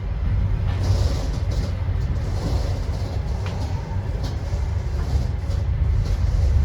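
Passenger train running, a steady low rumble with a haze of noise over it and a few faint ticks.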